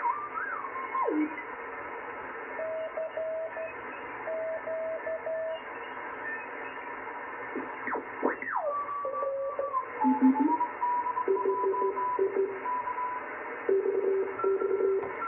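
Henry Radio Tempo One transceiver receiving through its speaker as it is tuned across a band: band hiss, whistles that slide sharply in pitch as signals are tuned past, steady carrier tones, and Morse code keyed in short on-off tones.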